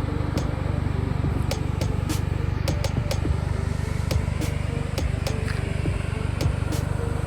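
Exhaust of a Toyota MR2 GT-S (SW20) through a Fujitsubo RM01A muffler, its turbocharged four-cylinder running steadily with no revving. Irregular sharp clicks sound over it.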